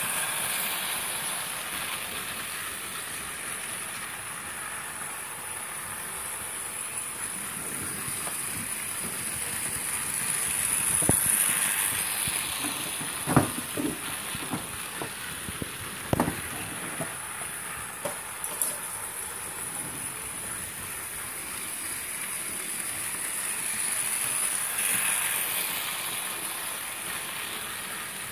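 Model train running on a layout: a steady rolling noise of the wheels on the track with a high whine, swelling as the train passes about twelve seconds in and again near the end. A scatter of sharp clicks and knocks falls between about 11 and 17 seconds in.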